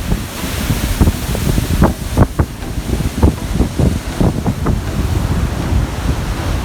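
Strong wind buffeting the microphone in irregular gusts, a loud low rumble with a rushing hiss of wind and sea behind it.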